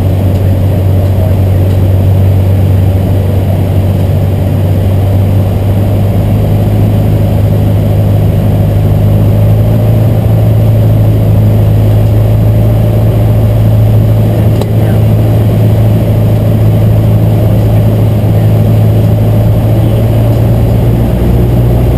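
Piper Warrior II's four-cylinder Lycoming O-320 engine and propeller running steadily in flight, a loud, even drone heard from inside the cabin.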